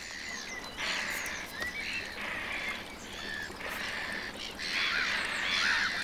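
Black-headed gull colony calling: many short, overlapping calls from several birds, growing busier and louder in the last couple of seconds.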